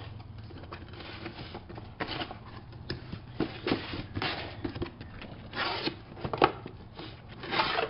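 A camcorder's retail box being opened and its contents handled: irregular rustling and scraping of packaging with a few soft knocks, busiest about three-quarters of the way through.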